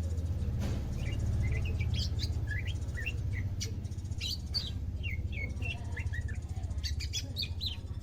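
A green leafbird (cucak ijo), newly kept and beginning to sing actively, gives a run of quick, varied chirps and short sweeping whistles starting about a second in. A steady low hum sits underneath.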